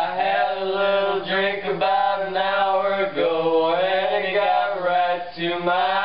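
A man's voice chanting in long held phrases, each note wavering in pitch, over a steady low drone; short breaks come about three seconds in and near the end.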